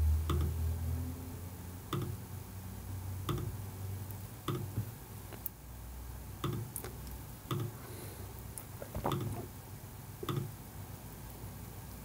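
Computer mouse button clicking, single sharp clicks about once a second, a dozen or so in all, while fillets are picked corner by corner in a CAD sketch. A low hum lies underneath, strongest at the start.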